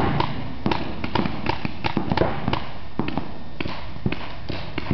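Paintball markers firing, a run of sharp, irregular pops at roughly three a second.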